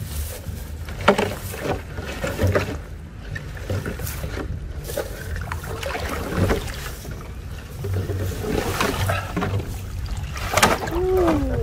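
Muddy water splashing and sloshing as a cast net loaded with small fish is pulled out of a shallow channel and dragged through grass, in irregular splashes and rustles. Near the end there is a short sliding voice-like sound.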